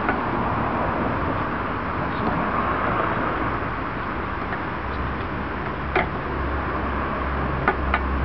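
Steady outdoor background noise, with a low rumble joining about five seconds in and a few sharp clicks near the end.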